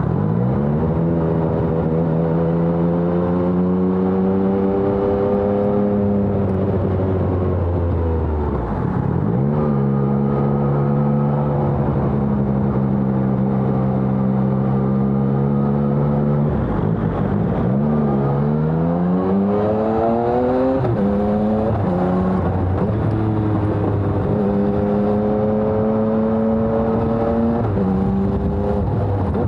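Inline three-cylinder engine of a 2020 Yamaha XSR900 with a LeoVince Evo One full-system exhaust, under way. The engine note climbs and drops several times as the bike pulls through the gears. Between the climbs are long stretches at a steady pitch.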